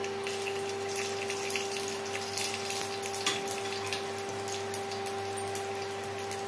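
Whole spices and chopped garlic sizzling and crackling in hot mustard oil in a pressure cooker: the tempering (tadka) stage. The sizzle is a steady hiss scattered with small pops, over a steady hum.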